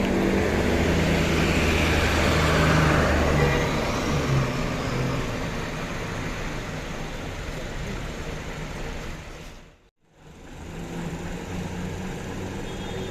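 Intercity bus's diesel engine running as the bus pulls away, a deep steady drone that is loudest for the first few seconds and then eases off. The sound drops out abruptly for a moment near the end and comes back.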